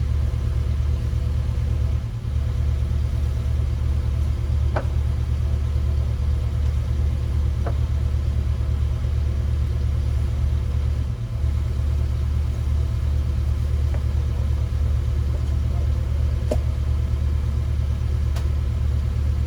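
Diesel engine of heavy equipment running at a steady speed, a deep continuous drone that dips briefly twice, with a few faint short squeaks over it.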